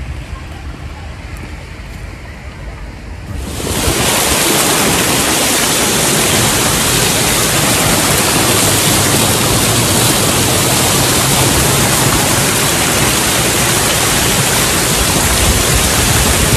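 Water running down the stone wall of a pond fountain, a loud, steady, even rush that sets in abruptly about three and a half seconds in; before that only a quieter outdoor rumble.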